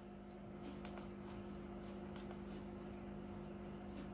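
Quiet room tone: a steady low hum with a few faint clicks from the cordless impact wrench and its battery being handled.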